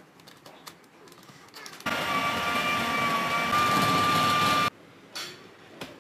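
Electric food processor (chopper) motor running for nearly three seconds to mix spice masala into minced beef. It starts abruptly about two seconds in, with a steady high whine over the chopping noise, and cuts off sharply.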